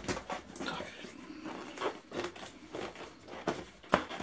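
Rubber bicycle tyre being worked onto a metal rim by hand: irregular rubbing and scraping of the bead against the rim, with a sharp click near the end.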